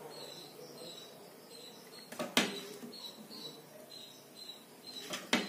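Quiet handling as chopped tomato is dropped by hand into small clay bowls of dal chaat. There is a sharp click a little past two seconds and two more near the end, as the bowls and plastic spoons are knocked.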